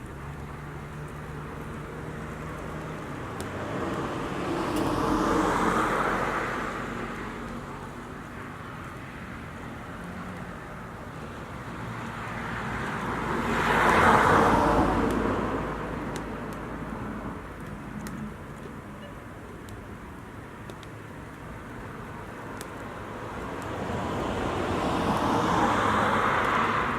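Three motor vehicles passing by on a road one after another, each swelling up and fading away, the middle pass the loudest.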